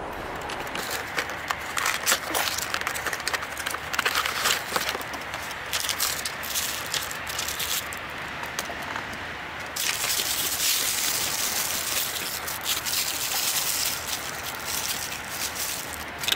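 Tissue paper crinkling and rustling as model snowploughs are unwrapped and handled out of their cardboard boxes. Scattered crackles for most of it, turning to a denser, steadier rustle about ten seconds in.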